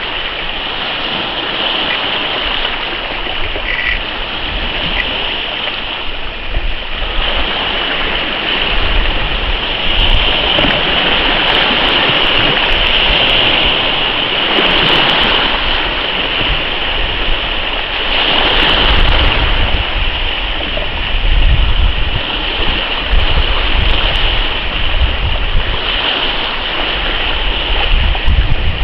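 Steady rushing of wind and choppy sea water, with wind gusts buffeting the microphone in low rumbles that grow heavier in the second half.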